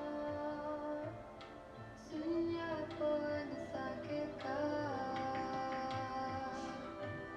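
Background music: a voice singing slow, long-held notes that glide from one pitch to the next, over instrumental accompaniment.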